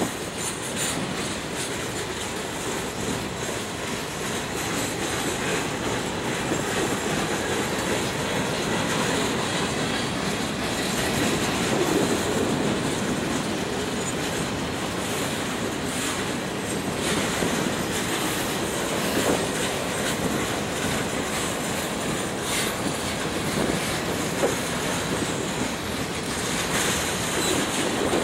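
Cars of a manifest freight train rolling past, their wheels clacking over the rail joints with a steady rumble, some wheel squeal and scattered knocks.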